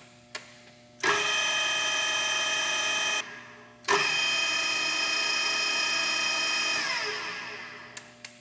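Tailift TPR1100 radial arm drill's geared spindle drive running, a steady gear whine with several tones. It starts suddenly after a couple of switch clicks, stops briefly, starts again, then winds down to a stop with falling pitch near the end, followed by a couple of light clicks.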